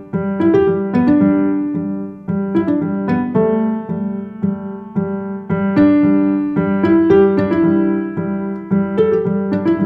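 Background music: a melody of struck piano notes, one after another, each fading away.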